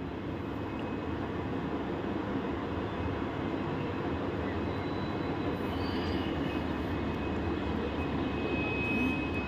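WDP4D diesel-electric locomotive's EMD 710 two-stroke V16 diesel engine running steadily beside the platform, a deep even rumble that grows slightly louder.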